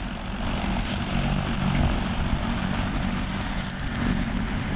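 Rescue helicopter on the ground with its turbine engine and main rotor running: a steady high turbine whine over the low beat of the rotor, getting a little louder about half a second in.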